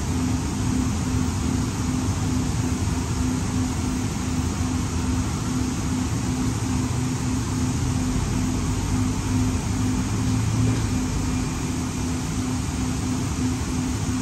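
Interior running noise of a Siemens LRV4 light-rail car in a subway tunnel: a steady low rumble of the car on the rails, with a low hum that pulses evenly throughout.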